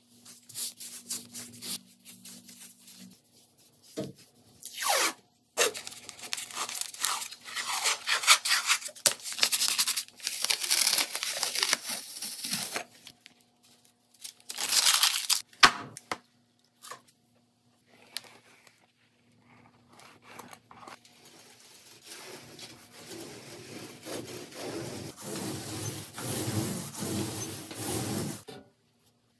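Paintbrush strokes against the wall, then blue painter's tape being peeled off the wall in a series of long tearing pulls. Later a paint spray gun hisses steadily as it sprays the wall, cutting off just before the end.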